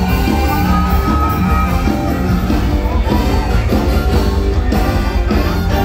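Live mor lam band music over loudspeakers, with a heavy steady bass beat and singing.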